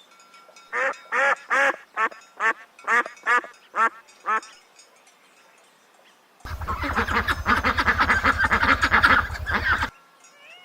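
Domestic duck quacking about nine times in a steady series. After a short pause comes about three and a half seconds of a denser, rapid chattering with a low hum underneath.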